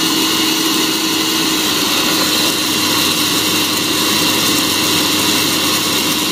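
Hot-air coffee roaster running: its fan blows a steady rush of air with a constant hum underneath, while green Yellow Caturra beans are tossed around in the glass roasting chamber early in the roast.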